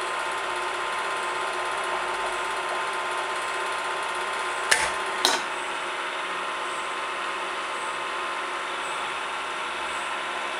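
A tensile testing machine's drive hums steadily while it pulls a white specimen. About halfway through come two sharp snaps about half a second apart as the specimen tears through.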